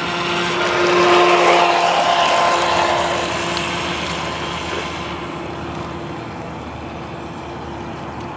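Brushed electric motor of a 17-inch Aquacraft Miss Geico RC boat whining steadily at speed over the hiss of water off the hull. It is loudest about a second in, then fades as the boat runs away.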